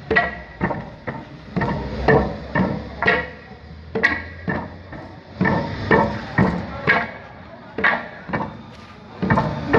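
Long wooden pestles of the Khmer angre (pestle) dance struck together and against their wooden base, a steady rhythm of sharp wooden knocks at about two a second, each ringing briefly.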